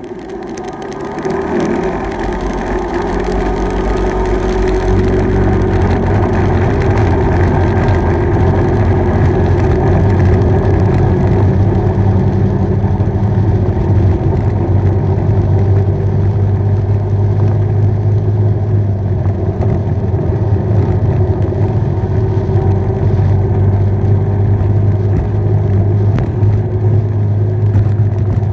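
Steady low drone of a bike being ridden along a road. It grows louder over the first few seconds as speed builds, then holds steady.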